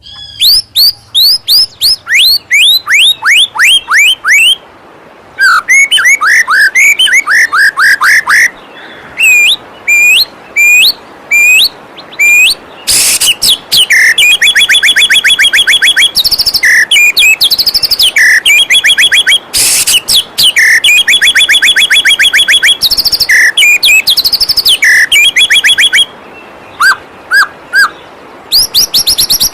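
White-rumped shama singing loudly: strings of downward-sweeping whistles, then long runs of rapid repeated trilled notes, ending in a few short notes. A steady rush of flowing waterfall water runs underneath.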